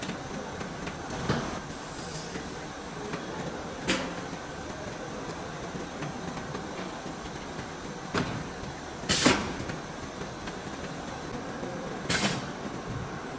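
Battery assembly-line machinery running with a steady hum. Over it come several sharp clacks and two short bursts of air hiss, the loudest about nine seconds in and another near the end.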